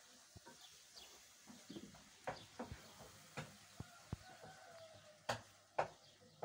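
Cats eating dry kibble, giving irregular sharp crunching clicks, the loudest pair about five seconds in. Faint bird chirps sound in the background.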